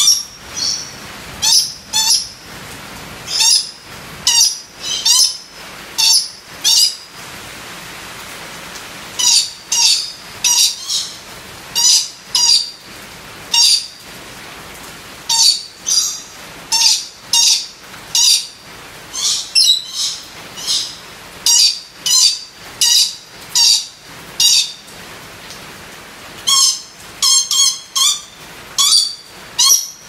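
Red lory giving short, high-pitched calls again and again, mostly in runs of two to four with brief pauses between, over a steady hiss of rain.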